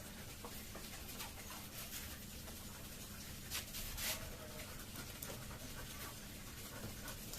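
Faint sounds of a pet Labrador in a quiet room: low steady background with two soft, short noises about three and a half and four seconds in.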